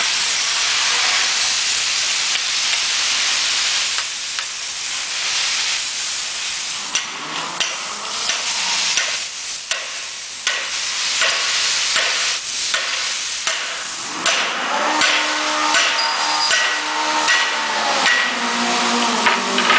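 A steady hiss, then light metal clicks and knocks as parts are handled and fitted on a steel extruder spindle and its bearing housing. A pitched drone with several tones comes in about two thirds of the way through.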